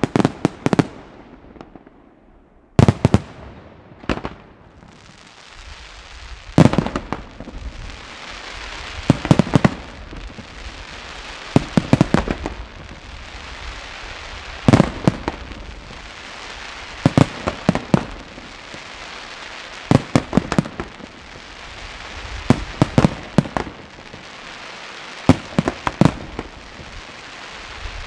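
Aerial fireworks display: clusters of sharp bangs from bursting shells, coming about every two and a half to three seconds. From about six seconds in, a steady hiss fills the gaps between the volleys.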